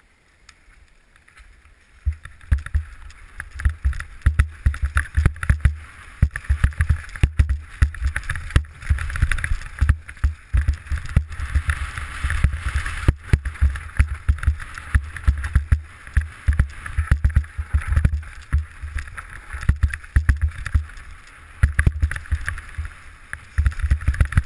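Downhill mountain bike ridden fast over a rough dirt trail, heard from a helmet-mounted camera: wind buffeting on the microphone with rapid knocks and rattles of the bike over roots and rocks, starting about two seconds in.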